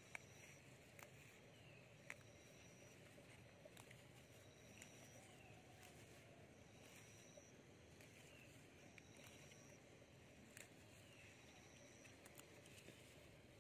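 Near silence outdoors, with a faint high animal call repeating about once every second or so, each a short steady note with a falling one beside it, and a few soft clicks.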